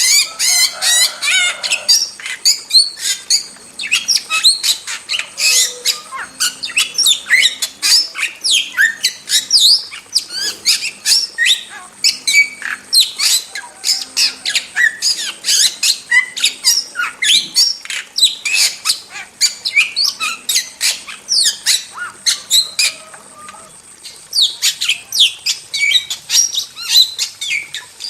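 A starling singing a fast, unbroken string of chirps, whistles and harsh squawks, with a short pause about 23 seconds in.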